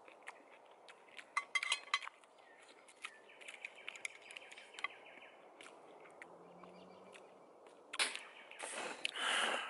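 Wood campfire crackling, with a cluster of sharp pops in the first couple of seconds and scattered pops after. A bird chirps in the background a few seconds in, and there are two loud rustles close to the microphone near the end.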